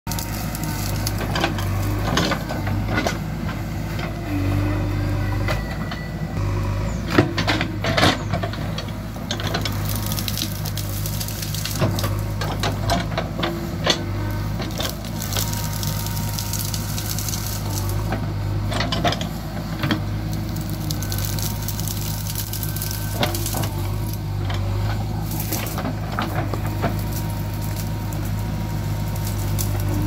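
JCB 3DX backhoe loader's diesel engine running steadily under load while the backhoe bucket digs and scrapes through soil and brush, with frequent knocks and crackles as ground and vegetation are broken up.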